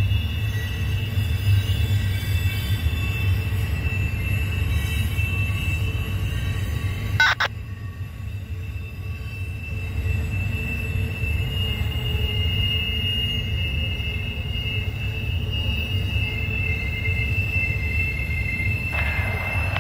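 Double-stack intermodal freight cars rolling past on a curve, their wheels squealing with steady high-pitched tones over a low rumble. A single sharp knock about seven seconds in.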